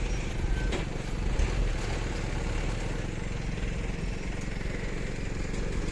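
Heavy diesel engine of construction machinery, a dump truck or excavator, running steadily with an even low throb.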